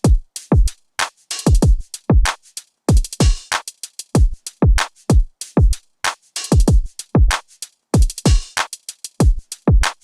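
Electronic music with a steady beat: deep kick drums that drop in pitch, with sharper snare or clap hits between them.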